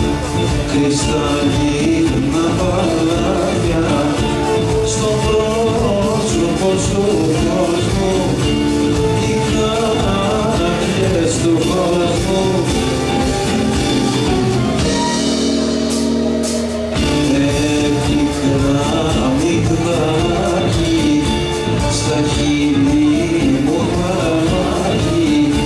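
A live band plays a Greek syrtos, with male singing and a bowed lyra over acoustic guitar, electric guitar and drums. About fifteen seconds in, the drums and low end drop out for a couple of seconds, then come back.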